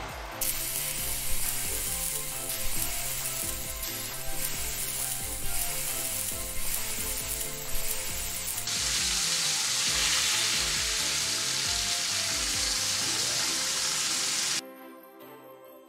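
Lamb shoulder steaks sizzling and frying in a hot grill pan on a gas hob. The sizzle grows denser and steadier about halfway through, then cuts off suddenly near the end.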